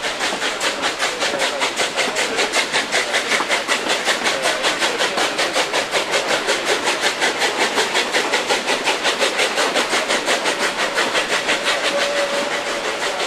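Vintage metre-gauge steam locomotives working up a steep grade, their exhaust chuffing in rapid, even beats heard from the train behind them.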